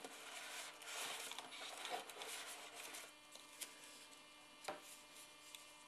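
Faint rustling of a folded paper filter being pulled from a plastic tray and handled, dying away after about three seconds, with two light clicks after that.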